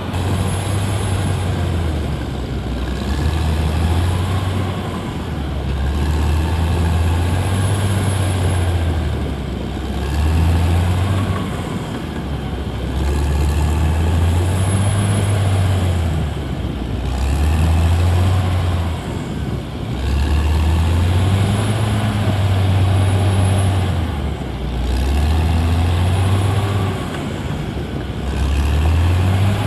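Caterpillar D6R XL bulldozer's diesel engine running under load, its pitch rising and dropping over and over, about every three to four seconds.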